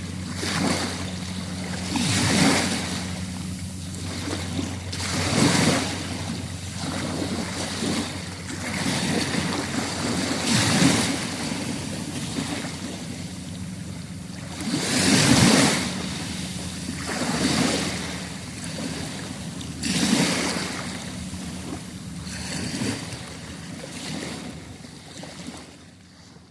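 Small sea waves washing onto the shore, the surf swelling and falling back every few seconds, then fading out near the end.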